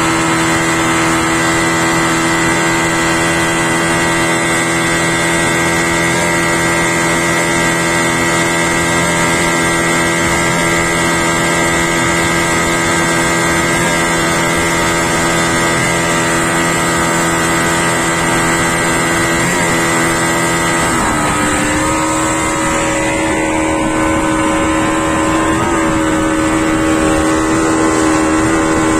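Yamaha Enduro 40 hp two-stroke outboard motor running steadily at high speed, driving the boat along. Its engine note dips briefly a little past two-thirds of the way through, then holds steady again.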